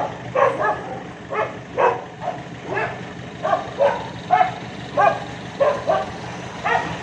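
A dog barking repeatedly, about two short barks a second, over a steady low hum.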